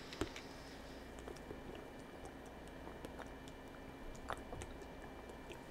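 A person drinking water: soft gulps and swallows with a few faint mouth clicks.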